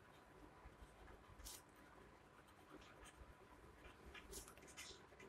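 Faint scratching of a pen writing on paper, in short irregular strokes, busiest near the end.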